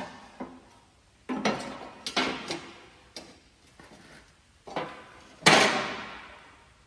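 Metal pieces and tools being handled, knocking and clanking about seven times at uneven intervals. Each hit rings briefly; the loudest and longest-ringing clank comes about five and a half seconds in.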